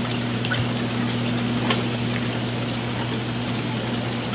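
Aquarium pumps and filtration running: a steady low hum under a constant wash of trickling water, with a few faint clicks.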